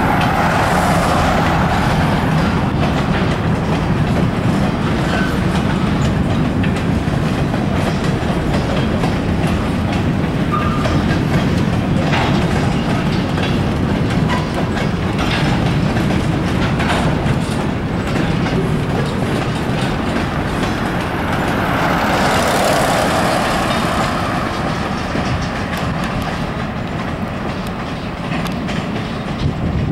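Escanaba & Lake Superior freight train's cars rolling past: a steady rumble and clatter of steel wheels over the rails, with a few sharp clicks around the middle. It gets somewhat quieter near the end.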